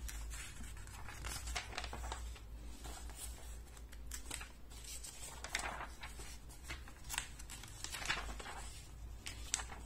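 Pages of a glossy magazine being turned by hand: paper rustling and crackling several times, each turn a short rustle.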